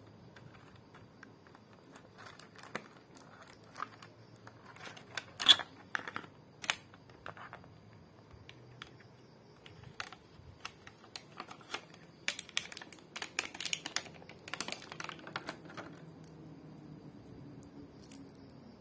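Plastic packaging handled while unboxing earbuds: a thin clear plastic insert tray and the cling-film-wrapped charging case clicking, crackling and crinkling under the fingers. Irregular sharp clicks and crinkles, the loudest about five seconds in, with a busy run between about twelve and sixteen seconds in.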